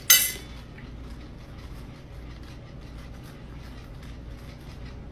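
A short, sharp noise at the start, then faint scratching and small clicks from cats at metal food bowls over a low steady hum.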